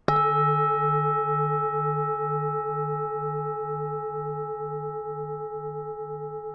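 Bronze Vietnamese temple bell (chuông chùa) struck once just after the start, then ringing on and fading slowly. Its low hum pulses about twice a second under several higher steady tones.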